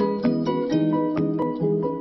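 Light intro music played on plucked strings, with notes picked in a quick, steady rhythm of about four a second.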